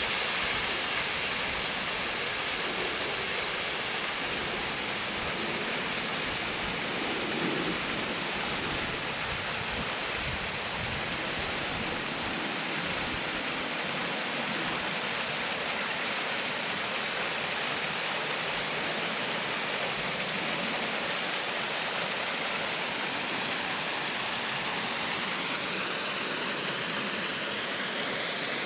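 Water rushing steadily over a partly ice-covered waterfall.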